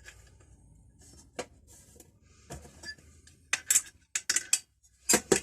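Metal hand tools being handled: scattered clinks and knocks of metal parts, coming thicker and louder in the second half.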